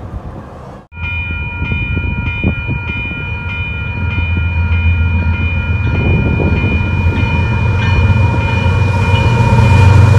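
Railroad crossing bell ringing steadily as a Canadian Pacific freight's diesel locomotives approach, their low engine rumble growing louder toward the end.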